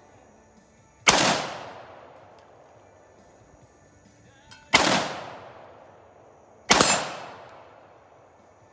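Three single gunshots, the first about a second in, the next two close together later on, each cracking sharply and trailing off in a ringing echo over about a second.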